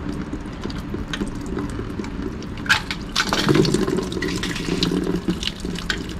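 Pink engine coolant pouring and dripping out of the opened thermostat housing and lower hose connection as the coolant drains, with light metal clicks.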